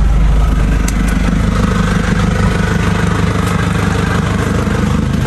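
Motorbike engine running steadily, with a constant low rumble.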